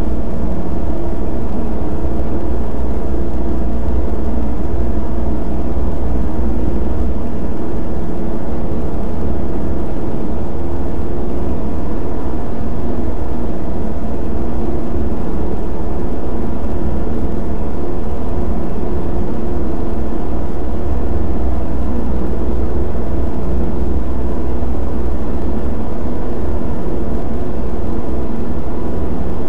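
Several front-loading washing machines running at once, their sounds layered into one steady, loud mechanical drone with a deep hum.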